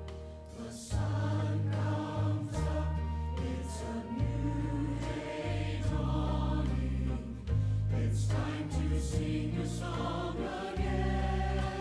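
Mixed church choir of men and women singing a hymn with instrumental accompaniment, the low accompaniment notes changing every second or so; the choir comes in louder about a second in.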